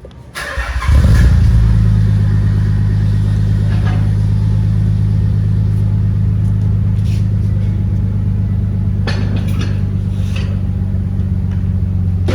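Nissan 300ZX's 3.0-litre V6 cranked briefly and starting about a second in, then idling steadily through an HKS cat-back exhaust with its resonators fitted.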